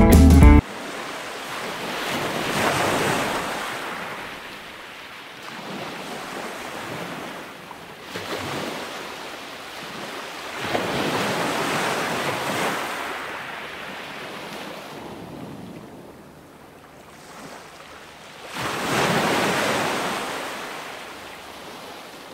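Ocean surf: waves breaking and washing up the beach one after another, each swelling and fading over a few seconds.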